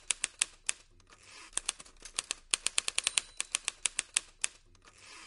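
Typewriter keystroke sound effect: quick runs of sharp key clacks, pausing briefly about a second in.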